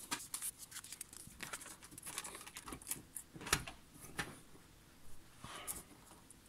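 Hands pressing strips of masking tape over the plastic transport buttons of a Tascam 244 cassette portastudio. The sound is faint rustling and scattered small clicks, with one sharper click about three and a half seconds in.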